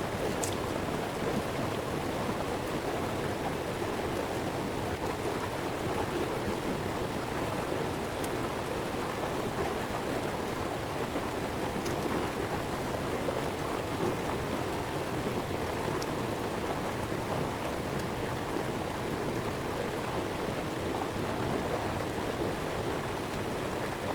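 Steady rushing of water, an even wash with no break and a few faint ticks. It cuts off suddenly at the end.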